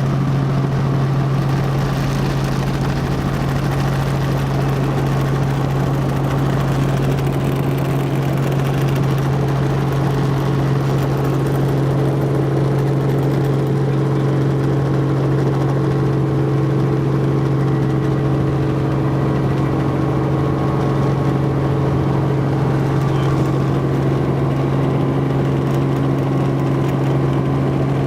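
Helicopter engine and rotors running steadily: a loud, even drone with a strong low hum.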